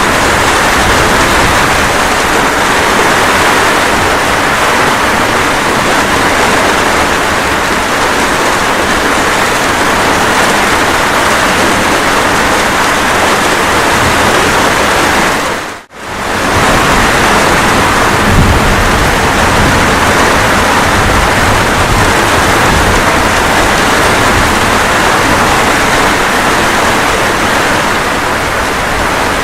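Steady rain falling, an even dense hiss, with a low rumble of thunder a few seconds after the midpoint. About halfway through the rain sound fades out to near silence and straight back in, a loop point in the recording.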